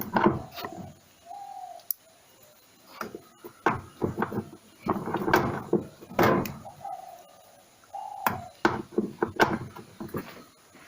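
Irregular knocks, clicks and clatter of tools and metal parts as screws are undone on a washing machine, with a few short squeaks in between.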